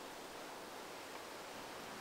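Steady outdoor ambient hiss with no distinct events.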